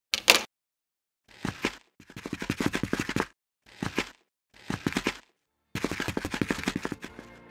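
Edited sound effects: a sharp hit just after the start, then several short bursts of rapid rattling pulses with gaps between them. The longest bursts last about a second each. Music comes in at the very end.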